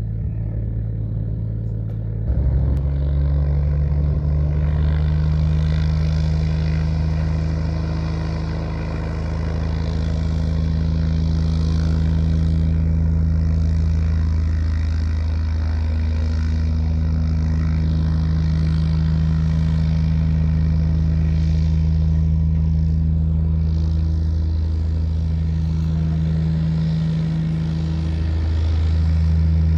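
Cessna 180A's six-cylinder Continental O-470 engine and propeller running, stepping up sharply in power about two seconds in and then holding a steady high power setting.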